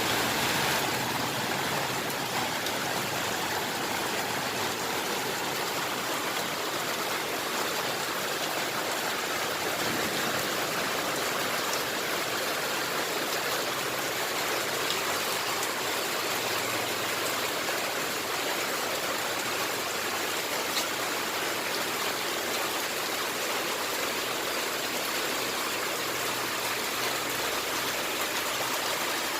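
Steady, heavy rain falling, an even hiss of many drops with no pause.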